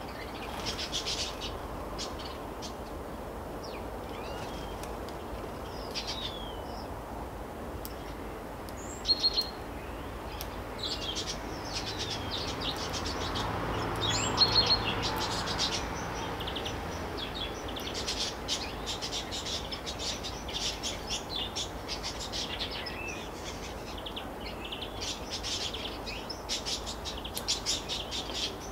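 Small songbirds chirping and twittering in quick, repeated calls, busiest in the last third. A low rumble swells and fades around the middle.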